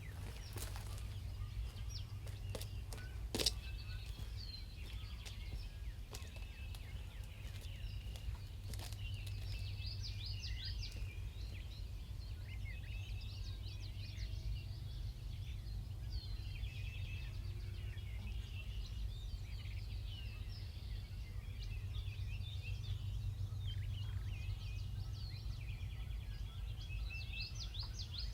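Small birds chirping and singing over a steady low rumble, with one sharp knock about three seconds in.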